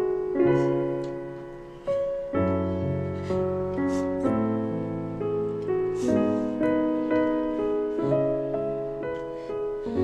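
Slow background piano music: single notes and chords struck every second or so and left to ring.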